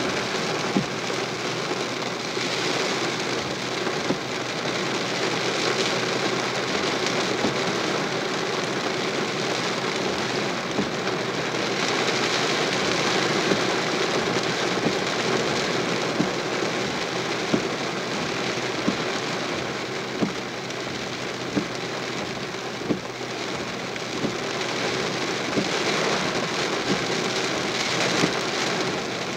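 Heavy rain falling steadily and splashing on the ground, with sharp louder drip taps close by every second or two.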